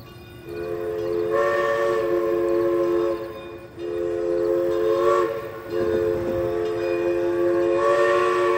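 The steam whistle of Southern Railway No. 401's locomotive sounds a three-note chord in three long blasts. The first two blasts end about 3 and 5.5 seconds in, after short breaks, and the third blast runs on.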